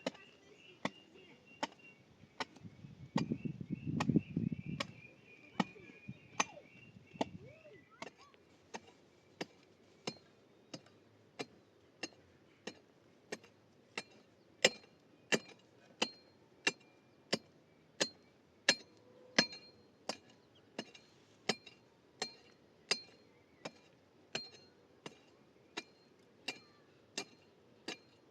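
A hand tool striking in a steady, even rhythm, about one and a half sharp knocks a second. There is a short low rumble a few seconds in.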